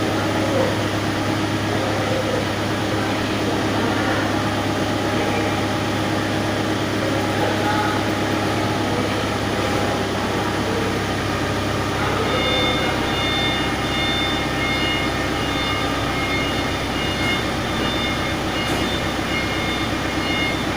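A vehicle engine running steadily; about twelve seconds in, a reversing alarm starts beeping repeatedly over it, as the vehicle backs up during loading.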